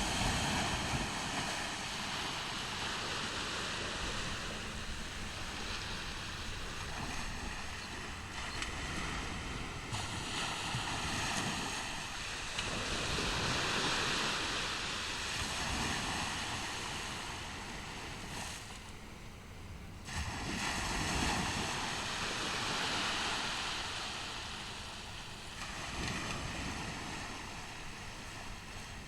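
Ocean surf on a beach: waves breaking and washing in, the rush of water swelling and fading several times.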